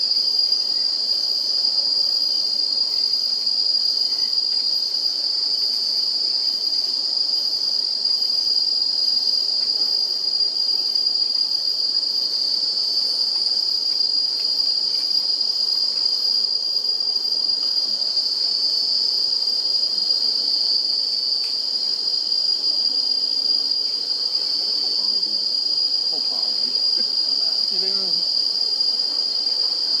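Steady high-pitched drone of insects in the surrounding woodland, holding one unbroken pitch.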